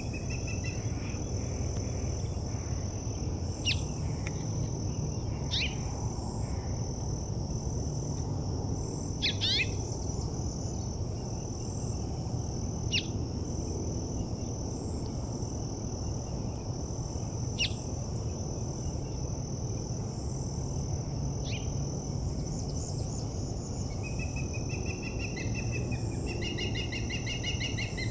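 Forest birdsong ambience: short sharp bird chirps every few seconds and repeated trilling calls near the end, over a steady high-pitched pulsing insect chorus and a low background hiss.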